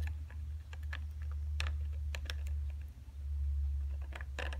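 Scattered light plastic clicks and ticks as a squeeze bottle of medium CA glue is worked along the seams of a 3D-printed panel, its nozzle touching the print, with a small cluster of clicks near the end. A steady low hum runs underneath.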